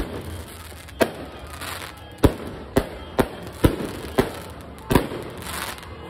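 Aerial fireworks bursting overhead: a run of about eight sharp bangs at uneven spacing, each half a second to a second after the last.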